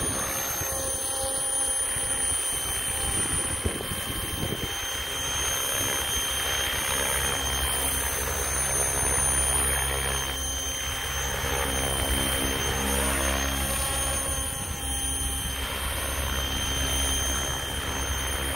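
Hirobo Lepton EX electric radio-controlled helicopter hovering: a steady high-pitched whine from the motor and gears over the low thrum of the rotor blades, which grows stronger about halfway through as it moves.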